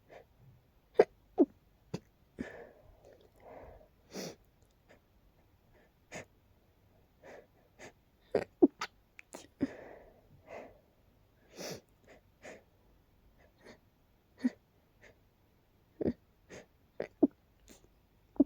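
A person in a sneezing fit: a long run of short, sharp sneezes, with wheezy drawn-in breaths before some of them.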